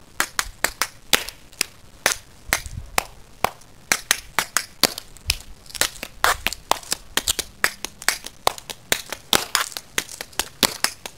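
Tap shoes dancing on concrete: sharp metal taps from the toe and heel plates, several a second in an uneven rhythm.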